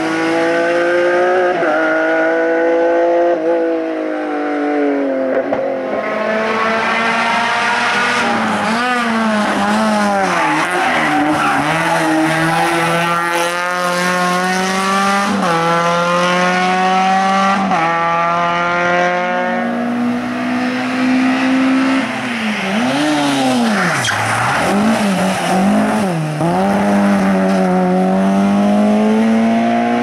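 Race car engines at full throttle up a hill-climb course, revving hard. The pitch climbs and drops back sharply at each gear change, with a stretch of throttle lifts and blips about two-thirds through.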